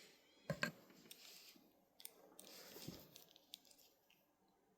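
Faint clicks and rustling of small plastic action-figure parts being handled.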